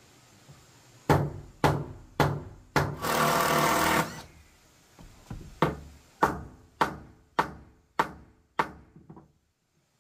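Hammer blows on wood: four strikes, a one-second burst of noise, then a steady run of about a dozen strikes at a little under two a second, each ringing briefly.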